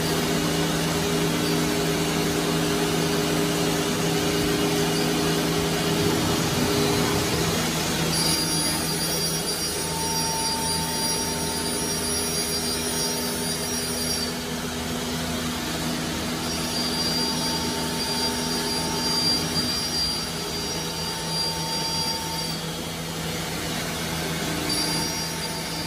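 Four-spindle Holztek R1325-R4 CNC nesting router running and cutting a board: a steady low hum, with a high spindle whine that sets in about a third of the way in and comes and goes in stretches of several seconds.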